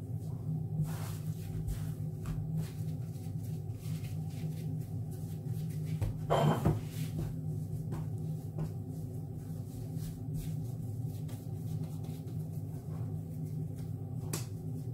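A steady low hum, with light taps and knocks from hands gathering and pressing soft dough scraps on a countertop. A louder clatter comes about six seconds in.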